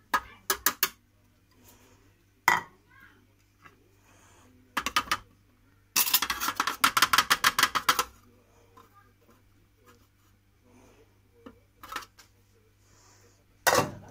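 Ceramic bowl and plate knocking and clinking against the rim of a multicooker's stainless steel bowl as flour and diced butter are tipped in: scattered sharp knocks, and a rattling run of quick taps for about two seconds midway.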